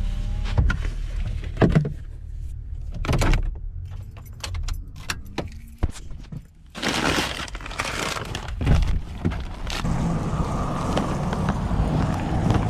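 Car keys jangling and a scatter of sharp clicks and knocks inside a parked car. About seven seconds in, a louder rush of steady outdoor noise takes over.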